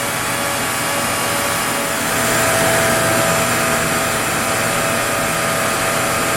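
Onefinity CNC router's spindle running with a steady whine as it cuts wood. Right at the end its pitch starts to fall as the spindle winds down at the job's finish.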